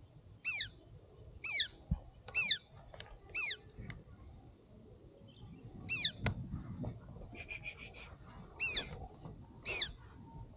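Collared falconet calling: a shrill, high call that sweeps downward, given seven times, mostly about a second apart. A fainter run of quick short notes comes about two-thirds of the way through.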